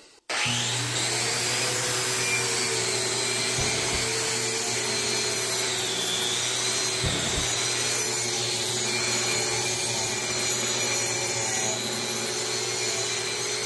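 Angle grinder with a concrete grinding cup running against a concrete slab, grinding down a hump, with the dust-extraction vacuum drawing through its shroud. It starts suddenly about a third of a second in and runs steadily, with a high whine that wavers in pitch as the cup is worked over the floor, then stops just at the end.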